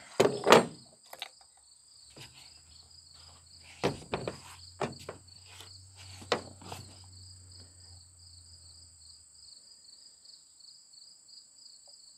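Insects chirping in a steady high trill, with a handful of sharp knocks and clicks over the first seven seconds, loudest about half a second in, from handling the chainsaw's gas and bar-oil caps and containers while refuelling.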